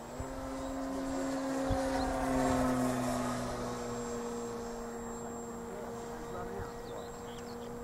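Electric motor and propeller of a radio-controlled BJ-1 Duster model glider running with a steady hum, stepping up in pitch at the start, swelling in loudness around two to three seconds in and dropping slightly in pitch about halfway through.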